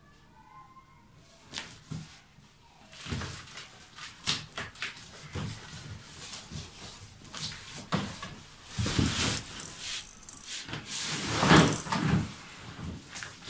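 Unboxing a plastic playpen: packaging rustling, with irregular knocks and clatters as hollow plastic parts are handled. It starts after a brief quiet moment and is loudest near the end.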